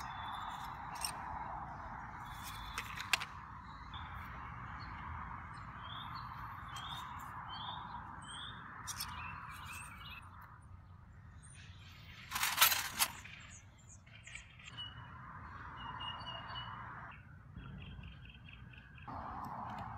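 Outdoor ambience of small birds chirping in short repeated rising notes over a steady hiss. A few sharp clicks come early on and one louder clatter about twelve seconds in, as a rusty metal hand tool is handled.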